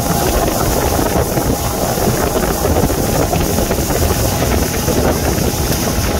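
Motorboat under way at speed, its engine running steadily under the rush of the wake and wind buffeting the microphone.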